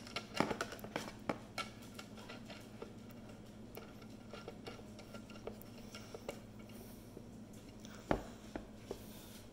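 Small clicks and taps of an omnidirectional antenna being screwed by hand onto the threaded connector of a small Wi-Fi device. The clicks cluster in the first second or so, then come sparsely, with one louder knock about eight seconds in.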